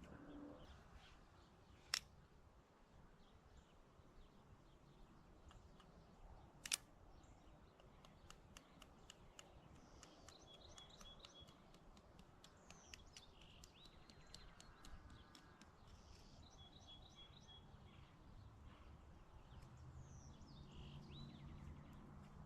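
Quiet woodland ambience with faint bird calls and short trills. A run of light ticks runs under them, with two sharp clicks about two and seven seconds in.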